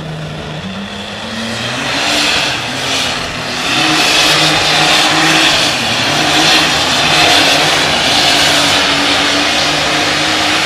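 Super stock pulling tractor's engine idling, then revving up about a second in and running loud and hard at full throttle as the tractor pulls the weight-transfer sled.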